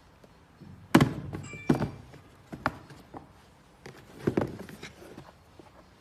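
A Nike Dunk Low sneaker being handled and turned over: a few sharp knocks and thumps as its rubber sole and leather upper bump against the other shoes and boxes, with smaller clicks and rustles between them.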